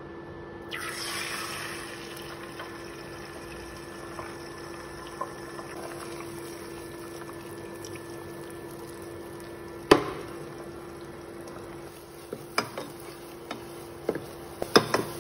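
Beaten eggs poured into hot oil in a nonstick saucepan, sizzling steadily as they set, over a steady low hum from the induction cooktop. A single knock comes about ten seconds in, and near the end a wooden spatula clicks and scrapes against the pan as the eggs are stirred.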